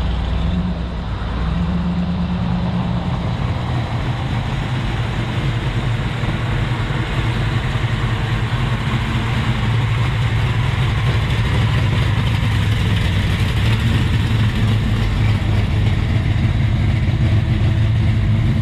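Car engine idling and running at low speed, its low, steady note growing slowly louder as the car comes closer.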